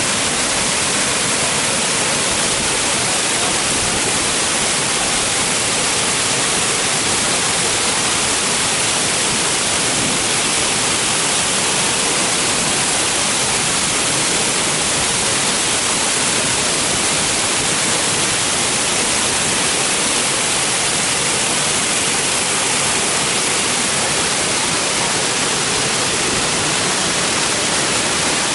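Iguazú Falls heard close up: a steady, loud rush of heavy falling water, more hiss than rumble.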